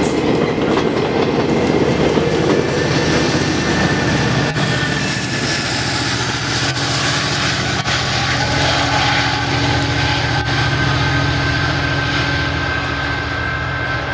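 Bilevel GO Transit coaches rushing past close by with wheel-on-rail noise, which after about three seconds gives way to the steady drone of the train's diesel locomotive, fading slowly as the train moves away.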